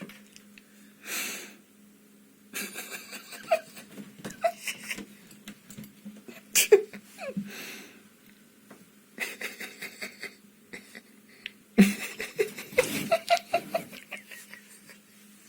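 A person laughing hard in several wheezing, breathless bursts with short pauses between them.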